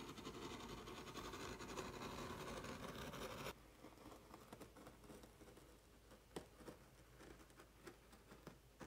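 Faint scratching and rubbing, dense and even, that cuts off suddenly a little over a third of the way in, followed by scattered light clicks and taps.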